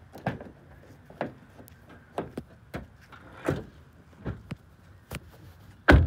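Footsteps on a concrete driveway, an uneven tread about once a second, then a much louder car-door thump near the end as someone gets into the car.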